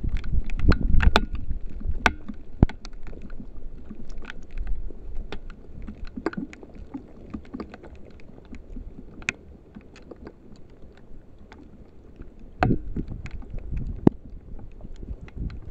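An animal moving in a shallow water hole: uneven splashing and sloshing with scattered sharp clicks and knocks, heaviest at the start and again near the end.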